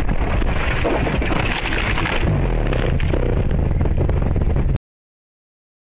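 A car ploughing off the road through bushes and tree branches: a loud, continuous rush of scraping and crashing against the body, which cuts off abruptly near the end.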